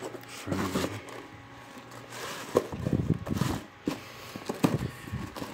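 A cardboard box and its plastic wrapping being handled and rummaged through: rustling and crinkling, busiest in the middle, with a few sharp taps.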